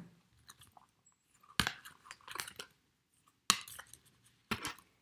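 Tarot cards being handled: three sharp taps, with light crackling and rustling between them.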